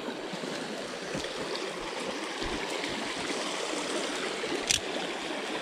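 Shallow rocky creek water running and splashing over stones, a steady rush. One short sharp click sounds near the end.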